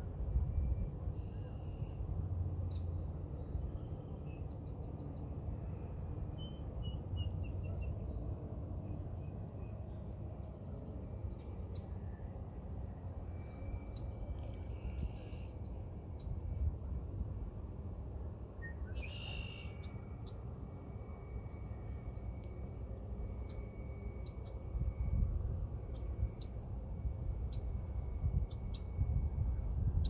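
Outdoor nature ambience: insects chirping in a steady pulsing rhythm throughout, with a few bird calls, the loudest about nineteen seconds in, over a low rumble.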